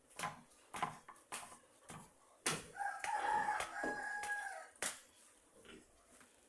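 Rooster crowing once, a single held crow of about two seconds starting a little before the middle. Several short sharp knocks or clicks come before and after it.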